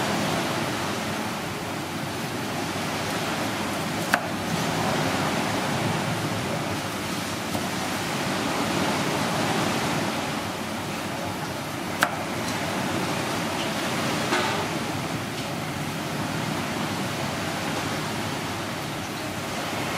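A steady rushing noise runs underneath, with two sharp knocks of a steel cleaver striking a wooden chopping block, about four and twelve seconds in.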